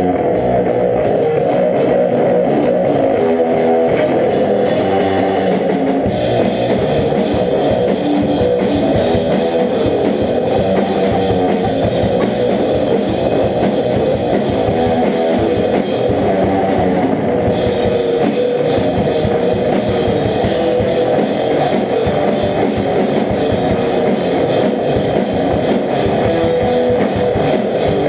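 A rock band playing a song on guitar and drum kit.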